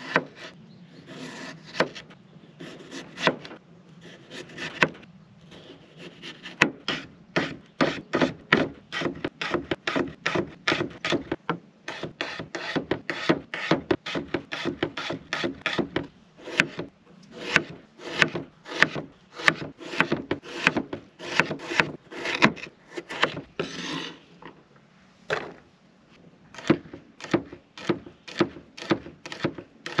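Chef's knife chopping a raw potato on a wooden cutting board: a run of sharp knocks of the blade on the board, about three a second, broken by a few short pauses.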